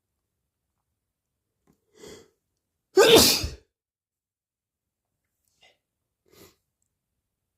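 A person with a cold sneezing once: a short, soft intake of breath about two seconds in, then a single loud sneeze a second later, followed by two faint breaths.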